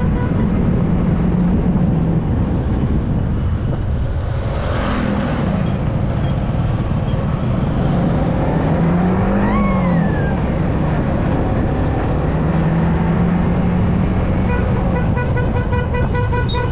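Motorcycle engine running at riding speed under wind and road noise, its pitch rising and falling once near the middle. Horns of other traffic toot.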